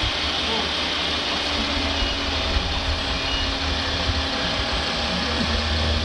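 Radio-controlled construction models running steadily, an engine-like hum over a low rumble.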